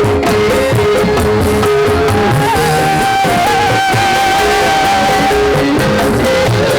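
A recorded song with guitar and a long held melody line, played loud through an ATV TLA12 passive line array speaker with two 12-inch drivers in a sound test; the melody holds one note, then moves to a higher held note about two seconds in.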